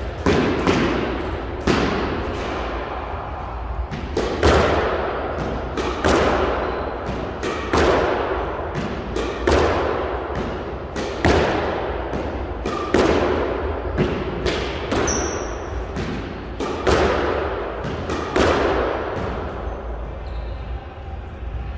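Squash ball driven again and again in a solo straight-length drill: sharp racket hits and the ball smacking the front wall and bouncing, roughly one shot every 1.7 seconds, echoing in the court. The hitting stops near the end.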